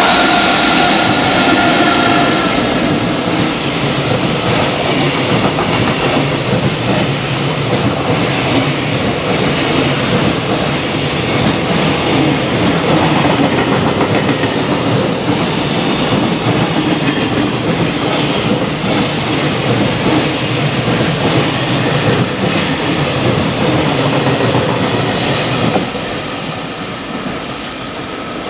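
EF65 electric locomotive and a long train of container flat wagons passing through a station. A steady whine comes in the first couple of seconds as the locomotive goes by. It is followed by the rumble and clickety-clack of wagon wheels over the rail joints, which fades near the end as the train draws away.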